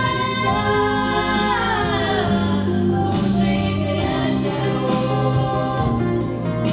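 A trio of young girls singing in harmony over an instrumental backing with a bass line. A held note slides down in pitch about two seconds in.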